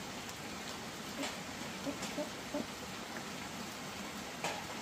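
Steady rain-like hiss with scattered light taps.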